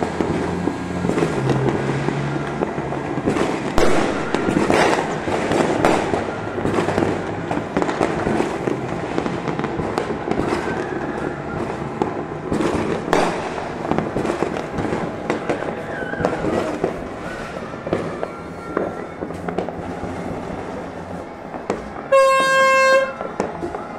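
Fireworks and firecrackers going off all over a city, a dense continuous crackle of many pops and bangs. About two seconds before the end, a loud horn sounds for about a second.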